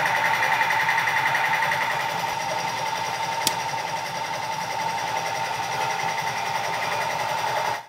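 Electric heat gun running steadily, its fan motor giving a constant whine with a fine flutter, heating the heat-shrink tubing on the shift cable. A single sharp click about three and a half seconds in, and the gun cuts off suddenly just before the end.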